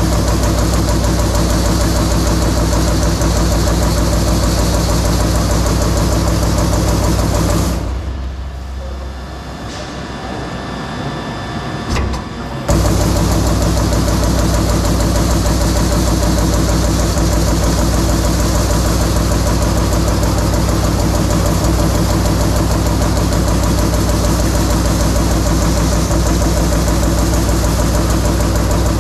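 CNC punch press rapidly punching a pattern of slots in a stainless steel sheet, a dense steady mechanical hammering over a machine hum. About eight seconds in the punching stops for roughly four seconds, then resumes abruptly.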